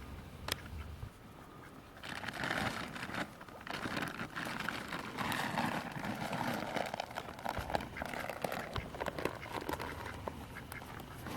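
A plastic treat bag crinkling and rustling as it is shaken and handled, in dense crackly bursts starting about two seconds in, after a single sharp click about half a second in.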